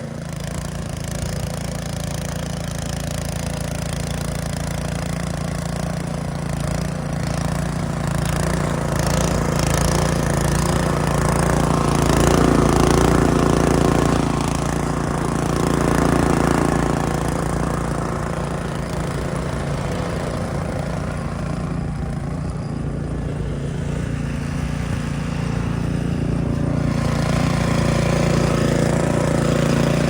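An engine running steadily at a constant pitch, swelling slightly in loudness about halfway through.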